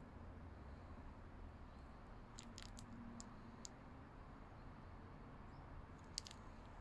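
Near silence: faint low outdoor background rumble with a few brief, faint clicks, and a short cluster of slightly louder clicks about six seconds in.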